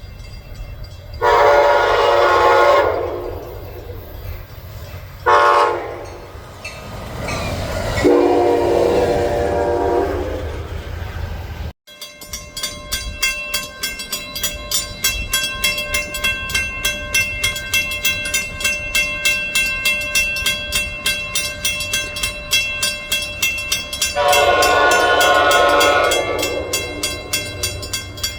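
Train horn blowing a long blast, a short one, then another long one whose pitch drops as it sounds. After an abrupt cut, a passing train's wheels click over rail joints in a steady rhythm of about two to three a second, and a long horn blast sounds again near the end.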